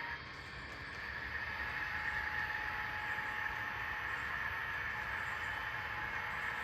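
HO-scale model train running on the layout's track: a steady whir with a thin steady hum, growing a little louder about a second in.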